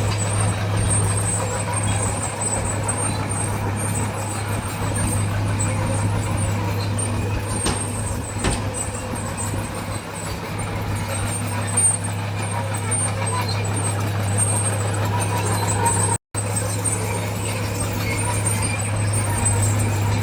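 Diesel engine of heavy earthmoving machinery running steadily with a low drone. The sound breaks off for a moment about sixteen seconds in.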